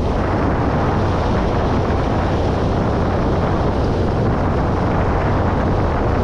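Wind rushing over the microphone of a moving Kawasaki Versys-X 300 motorcycle, its parallel-twin engine running underneath; a steady, unbroken noise.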